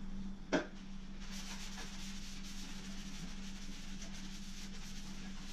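Faint rubbing of a cloth rag dampened with mineral spirits being wiped over the sanded wooden seat and spindles of an antique rocking chair, over a steady low hum. A single sharp click about half a second in.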